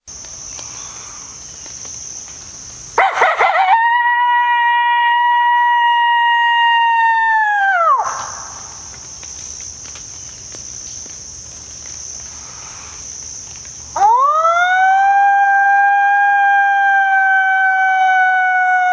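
Coyotes howling: a brief burst of wavering yips about three seconds in runs into one long held howl that drops off about five seconds later, then after a pause a second howl rises and holds, sagging slowly in pitch. A steady high insect buzz fills the quieter stretches.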